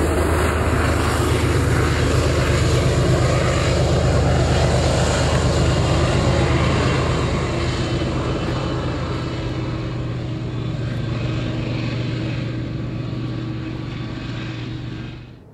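Diesel locomotive engine and wheels on the rails, a steady low hum with wheel noise, fading slowly as the locomotive moves away, then cutting off suddenly near the end.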